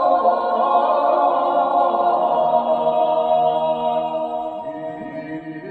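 Choir singing long held notes, fading down near the end.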